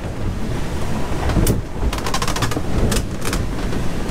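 Ranger Tugs R25 cabin cruiser running through a choppy sea, heard from inside the cabin: a heavy steady rumble of engine, hull and water, with several short bursts of rapid rattling ticks.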